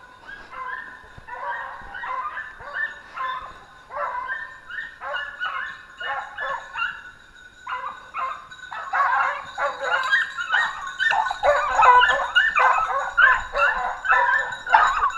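A pack of hunting bassets (petit basset griffon vendéen and basset fauve de Bretagne) giving tongue on a wild boar's scent trail, a run of rapid, overlapping bays. The baying grows louder and denser about halfway through.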